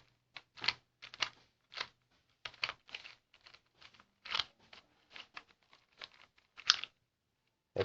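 Plastic Rubik's cube being turned by hand, its layers clicking and clattering in quick, irregular twists.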